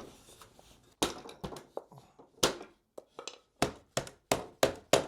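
A run of sharp knocks and taps from parts of a wooden IKEA Ivar shelf being fitted together by hand. The knocks are sparse at first and come about three or four a second near the end.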